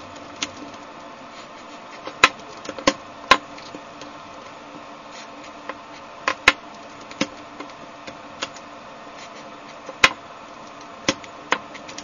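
Plastic Rubik's cube being turned by hand, its layers clicking and clacking at irregular intervals as freshly sprayed silicone lube is worked in. A steady low hum runs underneath.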